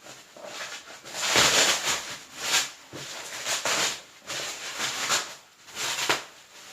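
Packaging rustling and crinkling as it is handled and unpacked, in a series of irregular surges, the loudest about a second and a half in.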